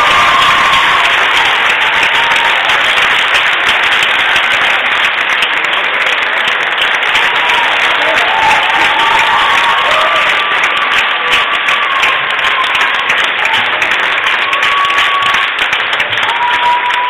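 A large audience clapping and cheering loudly, with voices calling out over the applause. The clapping becomes more distinct in the second half.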